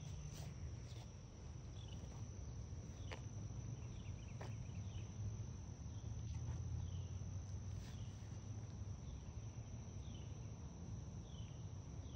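A continuous high-pitched insect trill held steady throughout, over a low steady rumble, with short falling chirps every so often and a few faint clicks.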